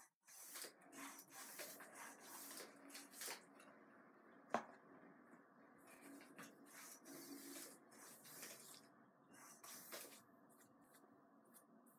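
Near silence with faint rustling and handling of craft materials by hand, and one sharp click about four and a half seconds in.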